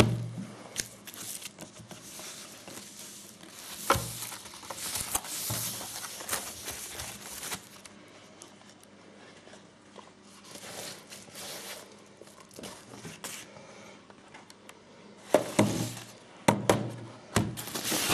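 Plastic packaging sleeve crinkling and rustling in irregular bursts as a keyboard dock is slid out and unwrapped, with a few sharp knocks of handling. There is a quieter stretch in the middle.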